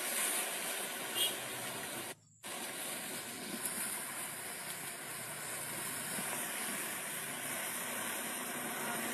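Steady, even outdoor hiss at a lakeshore, dropping out for a moment about two seconds in.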